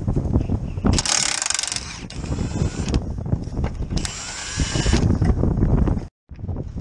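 Milwaukee cordless impact wrench hammering on a bolt under the car in two bursts of about a second each: one about a second in, the other about four seconds in.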